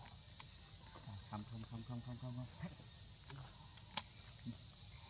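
Steady, high-pitched drone of forest insects, with one sharp click about four seconds in.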